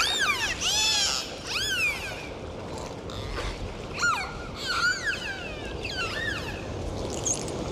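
A series of short, high animal calls, each arching up and down in pitch, about eight of them over six seconds, over a steady low outdoor rumble.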